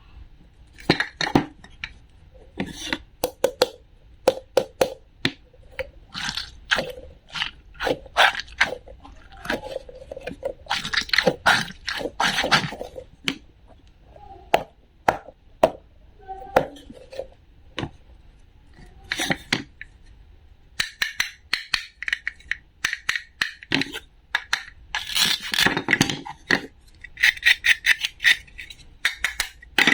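Hard objects being handled, making a long run of sharp clicks, taps and clinks with some scraping, in irregular clusters, a few with a short ringing note.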